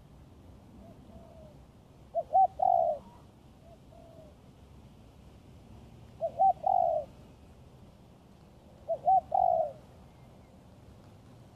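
Spotted dove cooing: three loud calls a few seconds apart, each two quick short notes followed by a longer one, with fainter coos in between.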